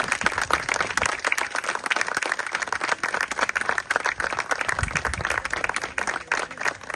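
Wedding guests applauding: many people clapping steadily.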